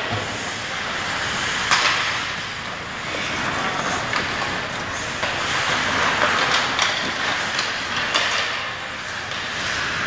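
Ice hockey play: skate blades scraping and carving the ice in a steady hiss, with several sharp clacks of sticks and puck, the loudest about two seconds in.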